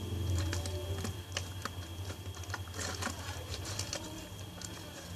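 Homemade slime being stirred and worked by hand, giving irregular sticky clicks and pops, over a steady low hum.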